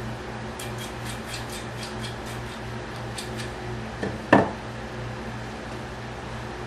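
Small hard parts being handled on a workbench: a run of light ticks, then one sharp knock about four seconds in, over a steady low hum.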